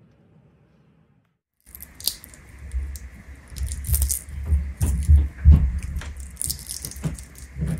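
Soft, sticky dried dates being torn open by hand to pull out their seeds: close, moist squishing and tearing with small clicks. It starts about one and a half seconds in, after near silence.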